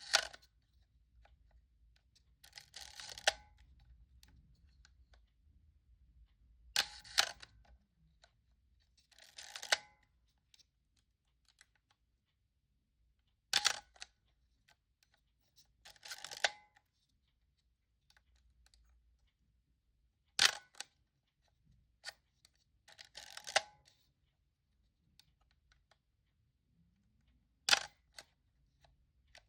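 Praktica MTL 3 M42 screw-mount SLR being fired five times, each release a sharp shutter-and-mirror click, about seven seconds apart. Each release is followed about two and a half seconds later by a longer, half-second mechanical whirr of the film advance lever cocking the shutter for the next frame.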